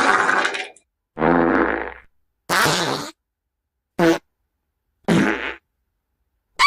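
Fart sound effect: a run of about six separate buzzing farts, each from a fraction of a second to about a second long, with short silent gaps between them. The last one, near the end, rises in pitch.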